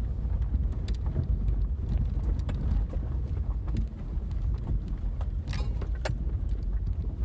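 Subaru driving slowly down a rough, stony grass track, heard from inside the cabin: a steady low rumble of engine and tyres, with scattered knocks and rattles as it goes over bumps and stones, the loudest a pair about five and a half and six seconds in.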